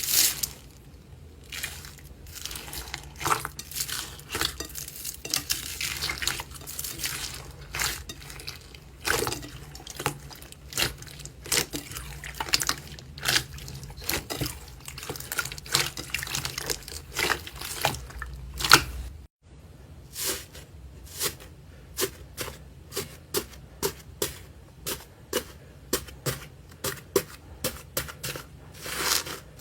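Slime being squished and pressed by hand, giving wet sticky pops and crackling clicks. About two-thirds through there is a brief dropout, after which the pops come in a quicker, even rhythm of about two a second.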